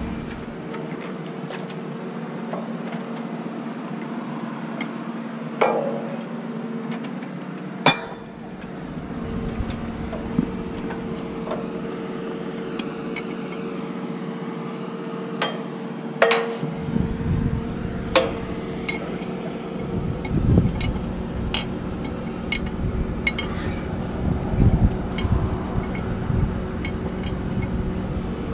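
Scattered metal clanks and clinks as hands and boots work along the steel ladder and leads of a pile-driving rig's hammer, with a few dull thumps in the second half, over a steady machine hum.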